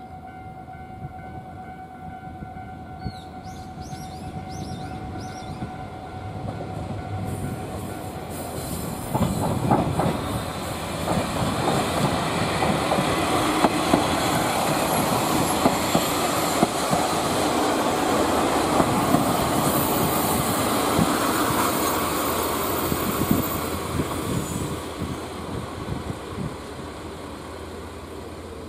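A level-crossing warning alarm rings for the first several seconds. Then a JR KiHa 40-series diesel railcar passes close by, its engine running and its wheels clacking over the rail joints. The sound builds up and then fades away.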